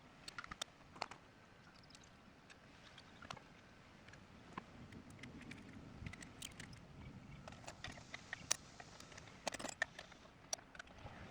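Faint, irregular light clicks and taps of small metal parts and hand tools being handled during assembly work, with a few sharper clinks near the end.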